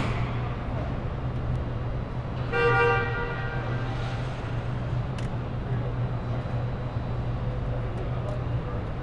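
Steady low hum of assembly-plant machinery, with one short horn toot lasting about half a second, a little over two seconds in.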